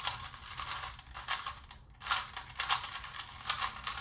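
A Rubik's cube being turned rapidly by hand, speedcubing style: a fast, dense run of plastic clicks and rattles from the layers snapping round.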